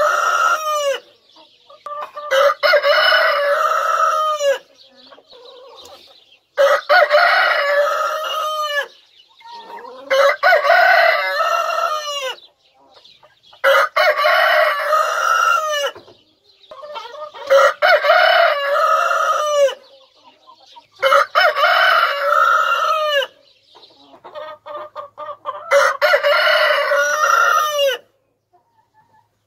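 Rooster crowing over and over, a drawn-out crow of about two seconds roughly every three and a half to four seconds, with hens clucking quietly between the crows.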